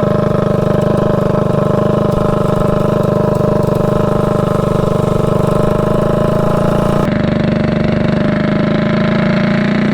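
Tillotson 225cc single-cylinder mini bike engine running at a steady pitch while ridden, exhausting through an open header pipe. The tone shifts abruptly about seven seconds in.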